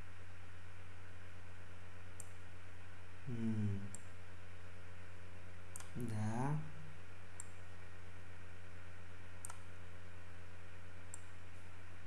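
Computer mouse clicking every second or two as line endpoints are set in Paint, over a steady low electrical hum. A man's voice murmurs briefly twice without words.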